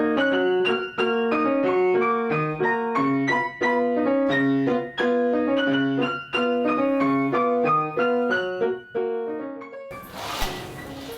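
Piano playing a quick, flowing line of notes over steady broken chords. About ten seconds in, a short burst of noise cuts across it, and the piano goes on more quietly.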